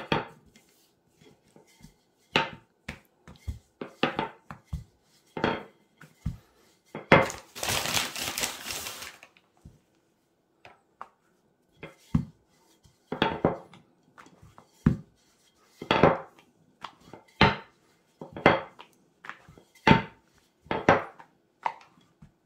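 Wooden rolling pin rolling out pastry dough on a hard worktop: a run of separate knocks and thuds as the pin is set down and pushed over the dough, with about two seconds of rustling hiss around seven seconds in.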